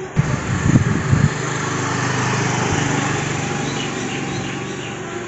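Strong wind buffeting the microphone and rushing through trees ahead of a rainstorm, with heavy low blasts in the first second and a steady rush after, over a faint steady low hum.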